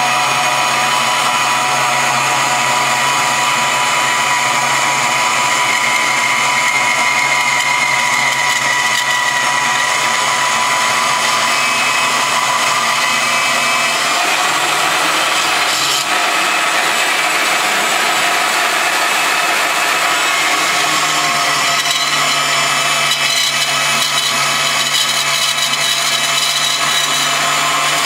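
A power tool running steadily, with a slight shift in its sound about halfway through.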